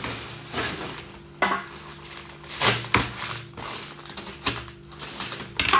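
Plastic packaging crinkling and rustling as it is handled and opened, in irregular crackles with a few sharper ones about halfway through and near the end.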